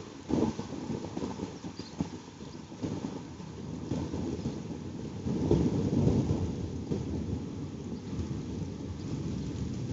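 Thunder rumbling over falling rain during a thunderstorm, the rumble swelling louder about halfway through.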